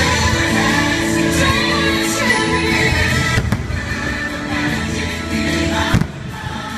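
Show music with a choir singing, with firework bangs over it; a single sharp bang about six seconds in is the loudest moment.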